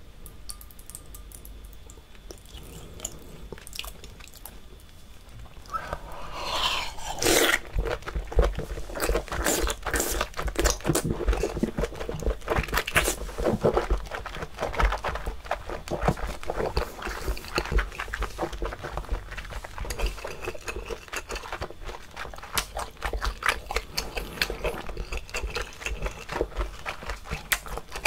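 Close-miked wet chewing of a big mouthful of sauce-coated raw seafood, a chewy sound. It is quiet at first, then a loud slurp about six seconds in as the mouthful goes in, followed by a steady run of quick wet smacks and clicks of chewing.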